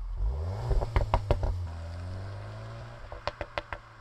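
Cupra Ateca 2.0 TSI (EA888 Gen 4) engine through its Akrapovic exhaust, revving up about half a second in with a few sharp bangs and then holding its revs. Near the end the revs fall away into a quick string of pops and crackles: the tuned overrun pops-and-bangs setting.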